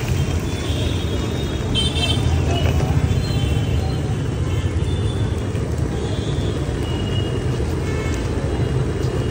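Steady low rumble of road traffic beside a street-food stall, with scattered short horn toots.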